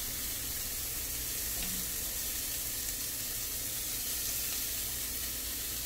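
Steady sizzling from a skillet of asparagus pan-roasting on the stovetop.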